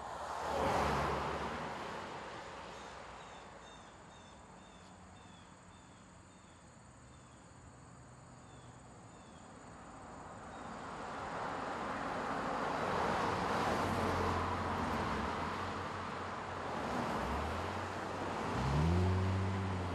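Insects chirping in a steady repeating rhythm, with a brief swell of noise about a second in. Then a car is heard approaching, its noise building from the middle on and its engine rising in pitch near the end.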